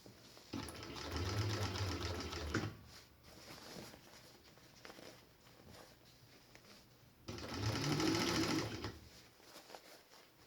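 Industrial walking-foot, cylinder-bed sewing machine, an Eagle clone of the Juki 1342, stitching nylon webbing onto a snowsuit leg cuff. It runs twice, for about two seconds and then about a second and a half, with a pause between.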